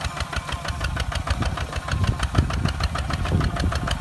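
Kubota ZT 155 DI walking tractor's single-cylinder diesel running steadily under load, a rapid even knocking beat, as it pulls a disc plough through the soil.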